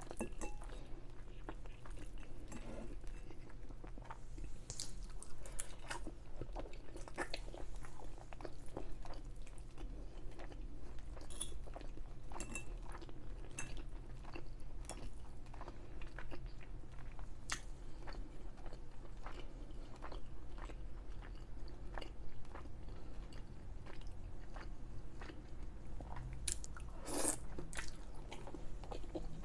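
Close-miked chewing and mouth sounds of someone eating chicken alfredo pasta: many small wet clicks and smacks over a steady low hum. There is one louder, longer sound near the end.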